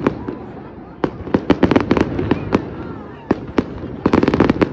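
Aerial fireworks going off: separate sharp bangs spaced through the first few seconds, then a rapid string of popping reports near the end.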